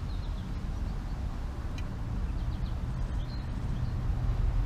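Low steady rumble of vehicle traffic, swelling slightly near the end, with a few faint high chirps.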